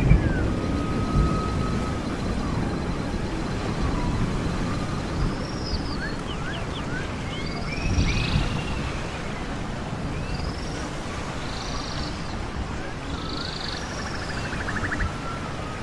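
Animal calls: repeated short, high chirps, each an arching sweep, coming every second or two, with a buzzy trill near the start and another near the end, over a steady low rumbling noise.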